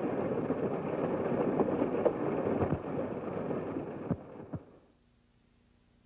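A steady rushing, hissing noise with a few knocks, dying away about four and a half seconds in to near silence.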